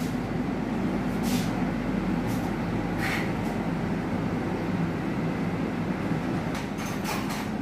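Steady low rumble of a ducted air-conditioning system running, with a few faint clicks.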